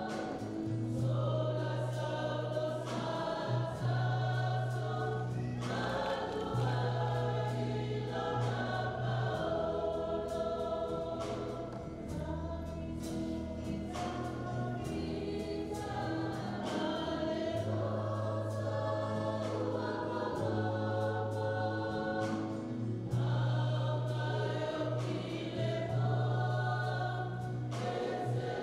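Mixed choir of women's and men's voices singing in harmony, with long held notes and a sustained low bass line.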